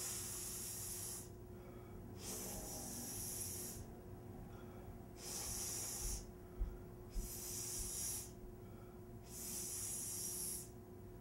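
A man breathing heavily through his nose, five long hissing breaths about two seconds apart.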